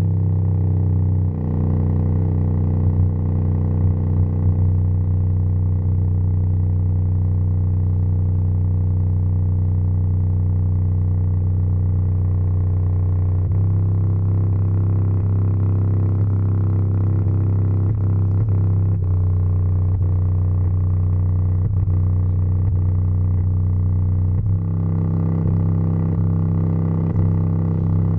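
LG LM-U5050 bass driver playing a loud, steady low bass tone with a rich stack of overtones, the cone driven to extreme excursion. The tone changes a little about halfway through and again near the end.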